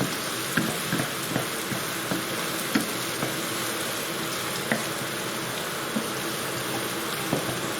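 Chopped onions, garlic and red chillies sizzling in hot oil in a pan, with irregular light taps of a spoon stirring them against the pan.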